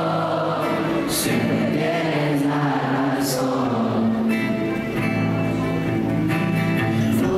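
A male voice singing over an acoustic guitar, performed live.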